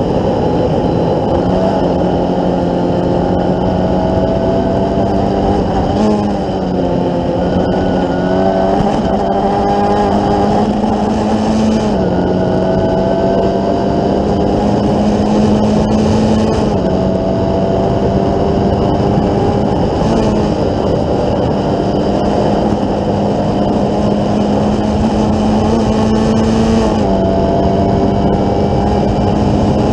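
Formula Ford 1600 race car's 1.6-litre Ford Kent four-cylinder engine at racing revs, heard from on board. Its pitch climbs slowly and dips back a few times as the driver works the throttle and gears, with wind rush over it.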